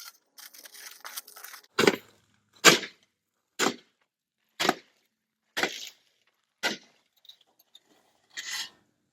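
A sledgehammer striking hard, seven heavy blows about a second apart with a longer pause before the last, beating something back into shape.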